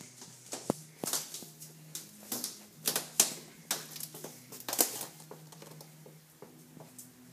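Irregular sharp clicks and taps from a miniature horse moving and nosing about at a couch, loudest around three and five seconds in.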